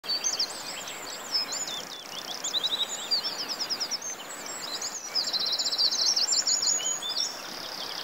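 Several birds chirping and singing over a steady hiss, with quick up-and-down whistles and fast trills. The longest and loudest trill, about ten notes a second, comes a little past halfway.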